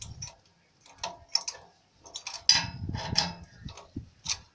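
Metal spark plug box spanner clicking and clinking against the generator engine as it is fitted over the new spark plug and turned clockwise to tighten it. Scattered light ticks, with a louder cluster of metallic clatter about two and a half to three and a half seconds in.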